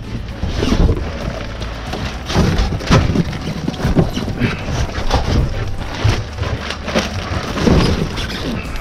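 Irregular thumps and knocks of household junk being handled and loaded, over a steady low rumble.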